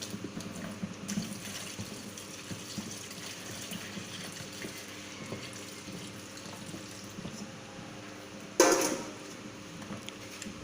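Water being poured into a bucket of dishwashing-liquid ingredients, a steady splashing fill. About eight and a half seconds in there is one sharp knock.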